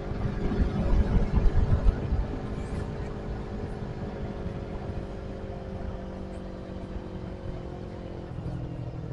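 Motorcycle engine running while riding, with wind buffeting the microphone strongly in the first couple of seconds. The engine note slowly drops as the bike eases off, then shifts to a lower, heavier note about eight seconds in.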